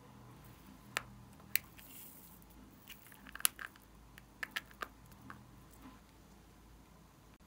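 Sharp clicks and crackly snaps of a small clear plastic slime container being handled and opened, coming singly and in short clusters, the loudest about three and a half seconds in.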